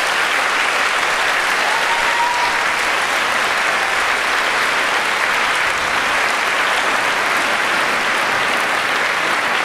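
Audience applauding steadily: dense, even clapping from a full hall.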